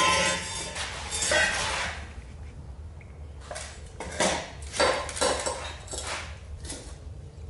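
Metal exhaust pipes clanking and scraping as they are handled: a longer scraping rattle over the first two seconds, then a series of short metallic clinks.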